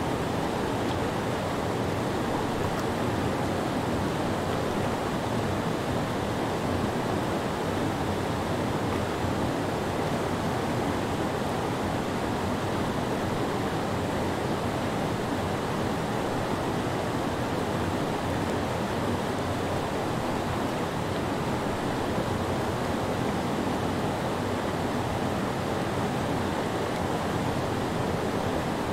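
Whitewater of a creek rushing over a low rock ledge in small rapids: a steady, full rushing noise.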